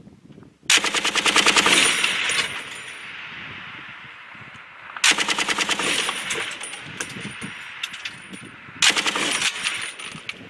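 M240-series belt-fed machine gun firing three bursts in rapid, even succession: a long burst of about two seconds, a shorter one about five seconds in, and a brief one near the end.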